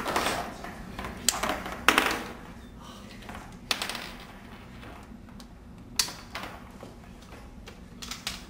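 Plastic ball-and-stick molecular model pieces clicking and knocking as atoms are pulled apart and fitted together on a wooden table, a few sharp clicks at irregular intervals.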